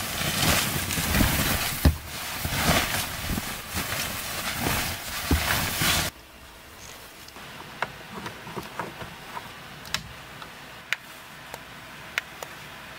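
Quilted fabric of an electric heating mat rustling and swishing as it is spread and smoothed over a bed, loud for about six seconds, then cutting off suddenly. After that it is quiet, with scattered light clicks.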